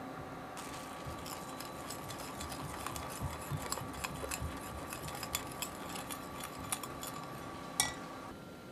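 Metal wire whisk stirring melted gelatin in a glass Pyrex measuring jug, its wires ticking lightly and irregularly against the glass. Near the end there is one sharper, ringing clink as the whisk comes to rest against the jug.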